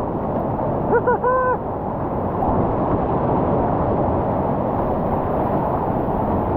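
Continuous rush and roar of big whitewater rapids on the North Fork Payette River running at about 2440 cfs, heard from a kayak in the rapid. About a second in come two short yells.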